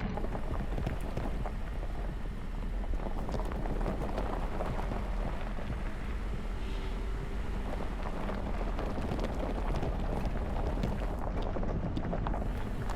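Jeep Gladiator driving slowly over a rough dirt and rock trail: tyres crunching gravel with a steady patter of small stone clicks over a low engine and road rumble.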